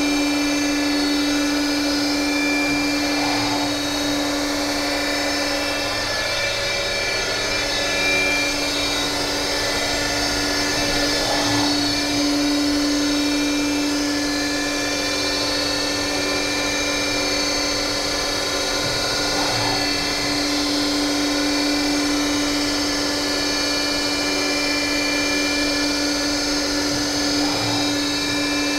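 Emcoturn 140 CNC lathe running a program in the air, its axes driven by DMM DYN4 AC servos: a steady machine whine with several steady tones, and faint swells every few seconds as the axes move.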